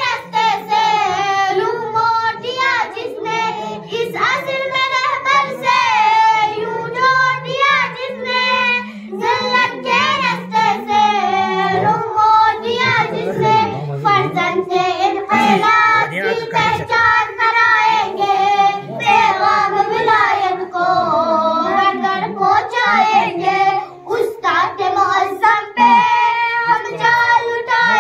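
Children singing into microphones, with brief pauses between lines.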